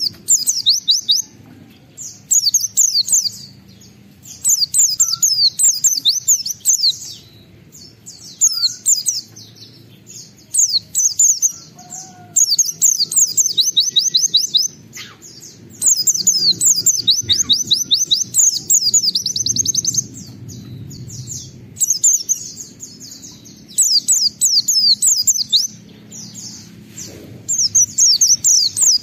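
White-eye (pleci) singing vigorously: phrase after phrase of rapid, high, quickly falling notes, each burst lasting a second or two with short pauses between. A faint low rumble of background noise runs underneath.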